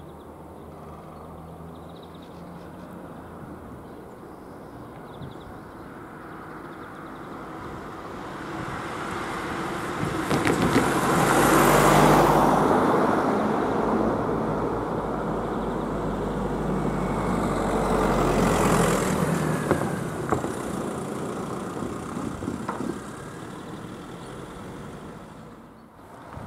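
Road vehicles passing close by: traffic noise builds, peaks about halfway through, and swells again with a second pass a little later before fading.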